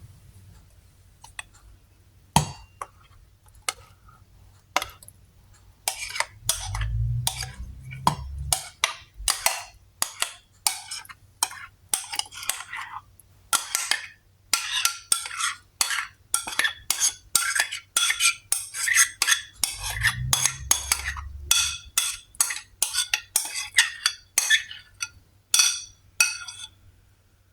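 Kitchenware being handled: a long run of quick clinks and scrapes, about two to three a second, sparse at first, with two short low thuds.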